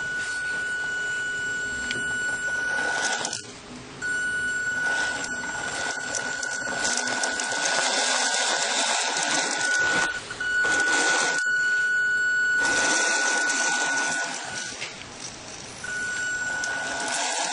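Small electric motor of a remote-control model dump truck's tipper lift running with a steady high whine over a rough mechanical rasp as the bed tips up. It stops briefly three times.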